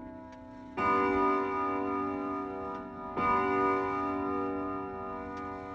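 Bell chimes struck three times, about two and a half seconds apart, each note ringing on with many overtones until the next strike.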